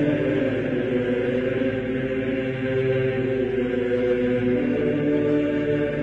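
Background music of slow, chant-like choral singing with long held notes.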